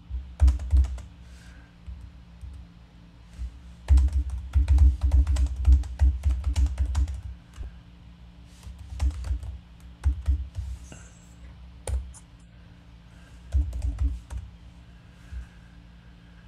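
Typing on a computer keyboard in several bursts: rapid key clicks with dull thumps against the desk, over a faint steady hum.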